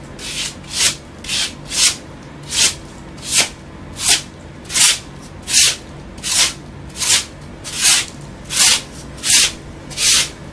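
A hand brush swept back and forth over a scraped, damp-damaged plaster wall, in an even rhythm of scratchy strokes a little more than one a second. The brushing knocks loose dust and flakes off the wall so the putty will stick.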